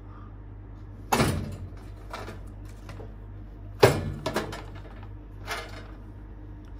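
A wooden dresser drawer and its contents being handled: two sharp knocks, about a second in and again just before the middle, each followed by a few smaller clatters.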